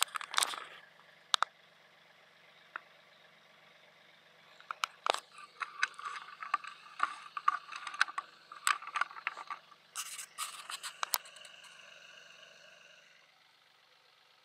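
Log dragged behind a tractor over leaf-covered ground: irregular scraping, crackling and sharp rattling clicks, thickest in the middle, with the tractor's engine running faintly underneath. It all stops a second or so before the end.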